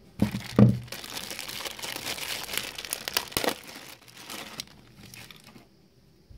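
Two dull knocks at the start, then a clear plastic bag crinkling for about four seconds as a power adapter and its coiled cable are unwrapped by hand.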